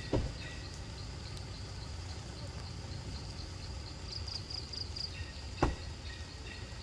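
Insects chirping with a steady high trill over a low outdoor rumble, with two short thumps: one just after the start and a louder one about five and a half seconds in.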